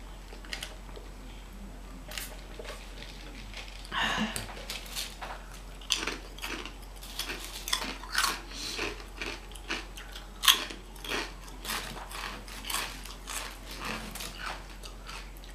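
Close-up chewing and crunching of potato chips: quiet at first, then a run of short, sharp crunches from about four seconds in.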